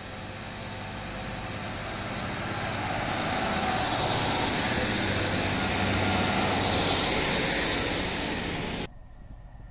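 Northern Railway diesel multiple unit running past at the platform: engine and wheels on the rails growing louder as it nears, staying loud as the coaches pass, then cutting off suddenly near the end.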